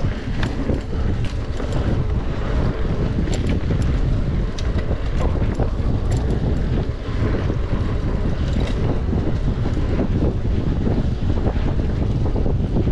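Wind rushing over the microphone of a camera carried on a mountain bike ridden at race pace along a trail, a steady low rumble with scattered sharp clicks and rattles.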